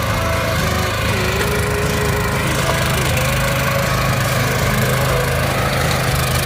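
Small single-cylinder engine of a walk-behind cultivator running steadily as it works the soil.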